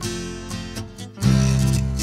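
Background music led by strummed acoustic guitar, thinning out briefly about a second in and then coming back fuller with a heavier bass.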